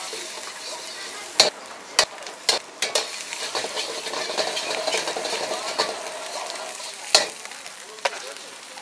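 Egg fried rice sizzling in a wok while a metal ladle stirs and scrapes through it. Sharp clangs of the ladle hitting the wok come four times in the first three seconds and twice more near the end.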